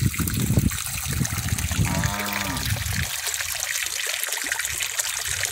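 Water pouring from a pipe tap into a concrete cattle water trough, trickling and splashing onto the water's surface. A short pitched call is heard about two seconds in, over low rumbling on the microphone at the start.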